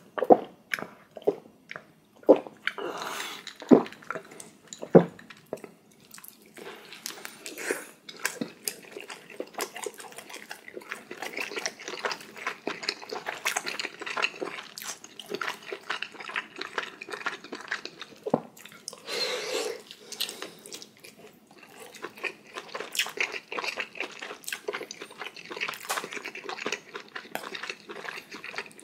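Close-miked eating sounds of spicy ramyeon noodles, dumplings and kimchi: wet chewing and smacking with noodle slurps, and a few sharp clicks in the first few seconds.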